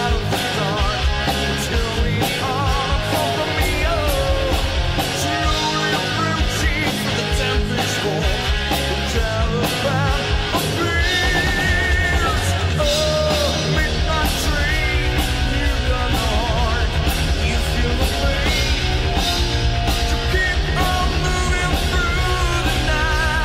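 Heavy metal band recording: distorted electric guitars, bass and drums with a wavering lead line on top. About halfway through, the low end turns into a fast, steady pulse.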